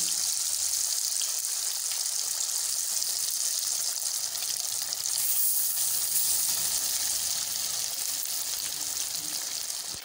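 Fish pieces deep-frying in hot ghee, a steady hissing sizzle with fine crackles from the vigorous bubbling of a freshly added batch, growing a little brighter about halfway through.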